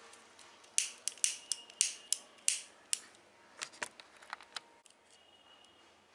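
A quick run of about seven sharp clicks within two seconds, then a few fainter ones, from small hand tools being worked.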